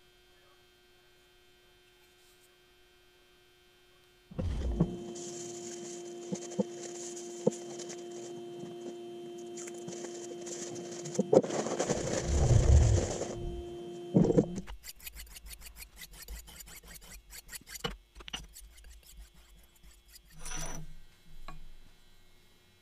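Workshop hand-work sounds: a cloth rag rubbing finishing oil into a wooden knife handle over a steady hum. About two-thirds of the way through the hum stops, and light clicks and taps follow as the knife is handled on the bench.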